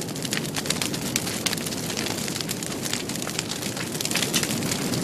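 Dense crackling noise, thick with sharp pops over a low rumble, growing a little louder near the end.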